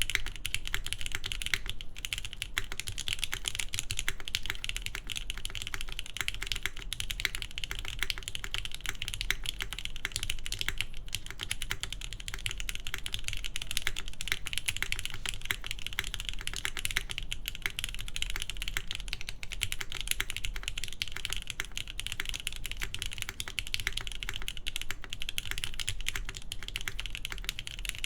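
Fast, continuous typing on a mechanical keyboard with lubed Gateron Milky Top Yellow linear switches in a gasket-mounted polycarbonate-plate board with GMK keycaps, a dense run of keystroke clacks.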